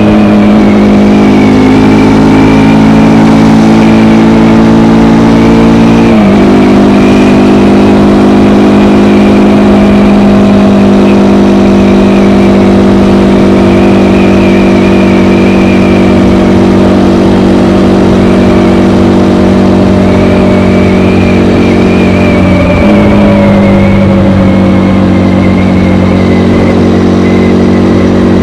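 A KTM Gen 3 Duke's single-cylinder engine runs through its stock exhaust under way at a steady pitch. The note dips sharply about six seconds in and again later, then settles.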